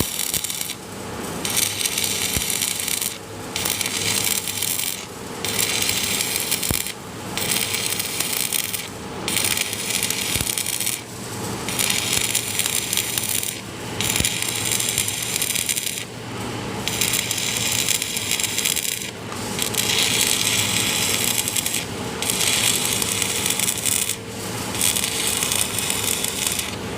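Stick welding arc crackling and sizzling in runs of one to three seconds, broken by short pauses.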